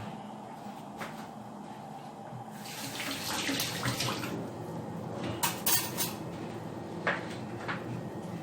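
A brief rush of running water lasting under two seconds, followed by a few sharp clinks and knocks of kitchen utensils, over a low steady hum.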